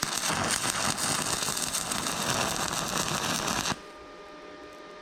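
Stick-welding arc crackling as a 7018 low-hydrogen rod strikes and lays a tack weld, cutting off sharply about three and a half seconds in; after that the welding machine hums steadily.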